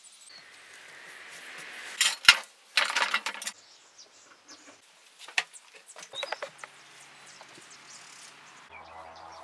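Sharp metallic clinks and knocks from handling metal hardware and tools. The loudest knock comes about two seconds in, followed by a quick rattle of clicks and a few lighter taps.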